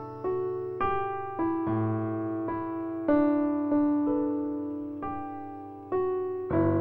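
Background piano music: a slow, gentle melody of single struck notes, each left to fade.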